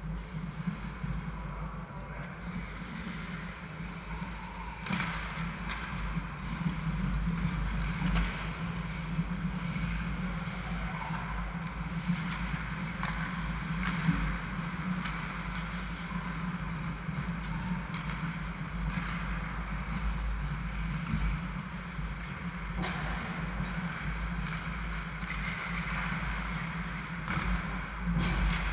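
Ice hockey rink sound during play: a steady low hum under the scrape of skates on ice, with occasional sharp knocks of sticks and puck. A faint high whine runs through most of it and stops about three-quarters of the way through.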